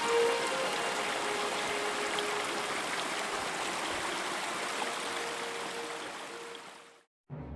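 A mountain stream running steadily, fading out near the end.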